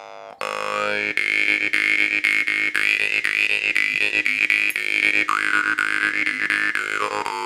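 A large bass jaw harp (vargan) by Masko, with a long, heavy Titan frame, plucked rapidly and steadily: a low buzzing drone with a bright overtone melody on top. The overtone holds high, drops lower for a couple of seconds past the middle, then rises back near the end.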